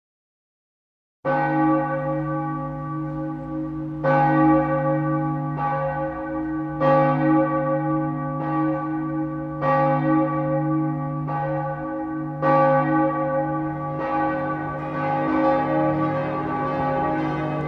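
Church bells ringing, with a new strike about every second and a half, each ringing on into the next. They start about a second in.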